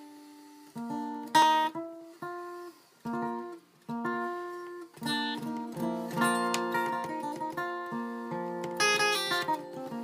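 1965 Gibson Country Western acoustic guitar, capoed, played solo: separate plucked notes and short phrases with small pauses at first, then fuller, continuous playing from about halfway. Bright strummed chords ring out about a second in and again near the end.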